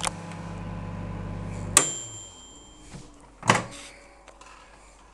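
Microwave oven running with a steady hum that stops about two seconds in with a sharp click and a single beep lasting about a second, the hum winding down. About a second and a half later comes a loud clack, the door being opened.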